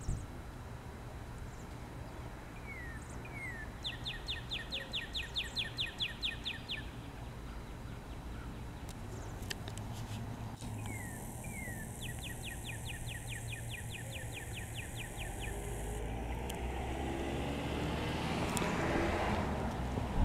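A songbird singing a trill of about fifteen quick, evenly spaced falling notes, twice, with a few short chirps between. A rush of noise swells near the end.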